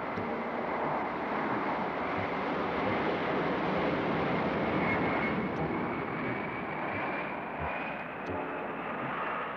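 Jet engines of the Boeing 747 Shuttle Carrier Aircraft, carrying the orbiter Columbia, running at power: a steady rushing roar with a high whine that slowly rises in pitch.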